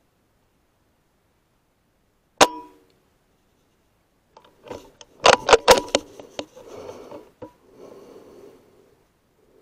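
A single shot from a Logun S16 pre-charged pneumatic air rifle firing a .22 slug: one sharp crack with a brief ring, about two and a half seconds in. About two seconds later comes a run of sharp metallic clicks and rattling as the rifle's side lever is worked to load the next slug.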